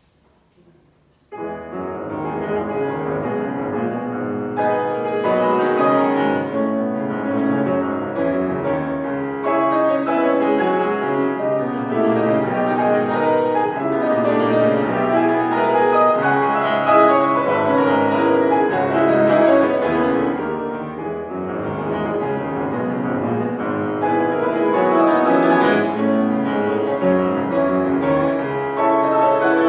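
Solo grand piano playing, starting suddenly about a second and a half in and continuing as many notes at once over a wide range.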